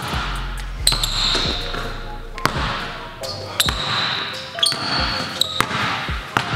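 Basketball dribbled hard on a hardwood gym floor, the bounces coming at an uneven pace as the dribbler changes speed.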